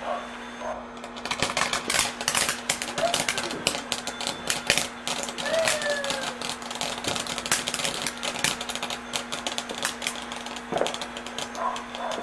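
Pyro Fan ground fountain firework spraying sparks, with dense, rapid irregular crackling that starts about a second in and keeps up over a steady hiss.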